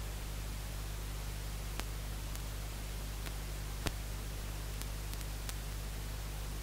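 Steady static hiss over a low hum, with a few faint clicks, the clearest just before four seconds in.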